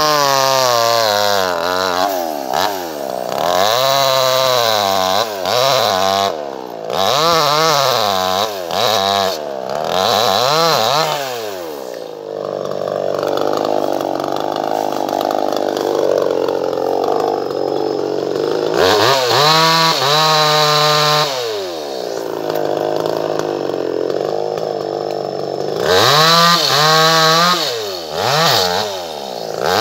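Two-stroke chainsaw engine revved up and down again and again, its pitch rising and falling every second or two, with a rougher, steadier stretch of running in the middle.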